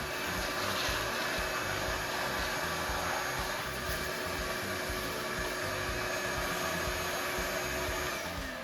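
Electric shop vacuum running steadily while cleaning up drilling debris, then switched off near the end, its motor whine falling in pitch as it winds down.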